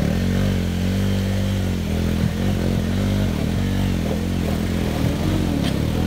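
Vehicle engine revving up and down repeatedly under load, the throttle held open to keep it from stalling while it pushes through a river crossing.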